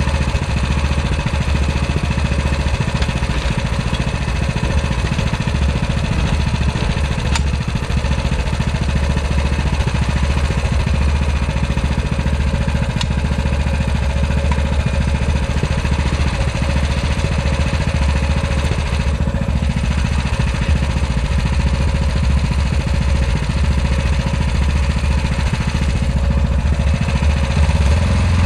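Walk-behind tractor (motoblock) engine running steadily at idle. Near the end it picks up speed.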